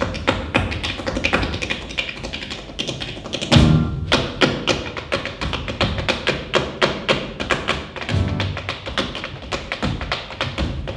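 Two dancers' tap shoes striking a stage floor in fast, dense rhythms. Twice a heavier, low booming hit lands among the taps, about a third and three quarters of the way through.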